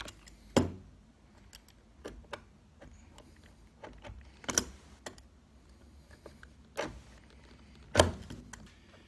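Irregular sharp clicks and knocks of hand tools working on a metal door hinge and its screws, about half a dozen spread unevenly, the loudest about half a second in and near the end.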